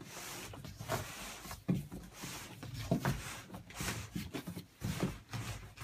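Cardboard scraping and rustling against cardboard as a guitar box is pulled out of a tight-fitting shipping carton, with irregular knocks and bumps of the boxes about once a second.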